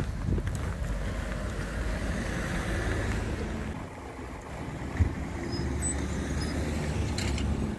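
Outdoor street ambience on a snowy town street: a low steady rumble of traffic with wind on the microphone, and a single sharp knock about five seconds in.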